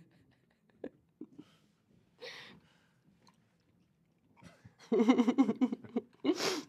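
A woman sipping through a straw, with small soft sips and mouth clicks, then laughing loudly for about a second near the end, followed by a short breathy burst of laughter.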